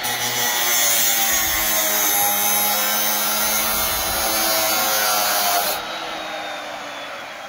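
Power tool running with a steady motor whine and a harsh rasping cutting noise. The rasping stops suddenly about six seconds in while the motor keeps running more quietly.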